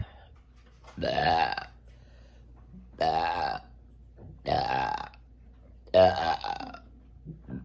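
A woman burping four times, about a second and a half apart. Each burp is about half a second long and has a clear pitch. The burps are brought up by drinking sparkling water.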